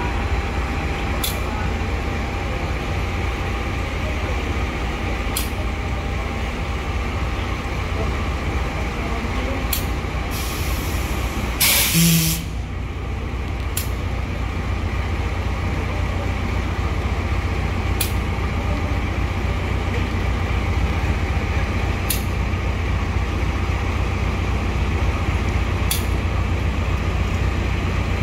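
A KAI CC 201 diesel-electric locomotive idling with a steady low rumble. About twelve seconds in comes a short loud hiss of released air, and faint clicks recur about every four seconds.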